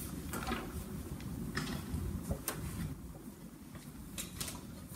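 Footsteps and the rustle of loose paper sheets being handled at a lectern: a handful of short, scattered knocks and rustles over a low room hum.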